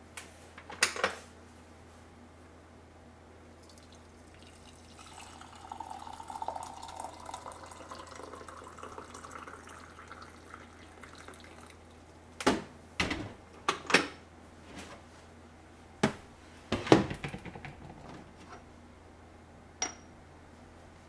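Water poured into a ceramic teapot in a steady stream lasting several seconds. Several sharp clinks and knocks of crockery follow. Near the end the ceramic lid is set onto the pot with a light clink.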